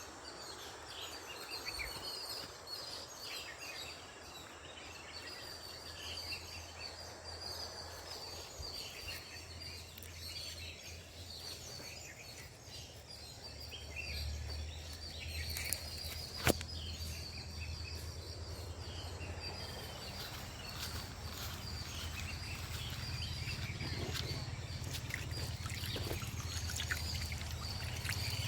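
Outdoor ambience of birds chirping over a low steady rumble that grows louder in the second half, with a single sharp click about sixteen seconds in.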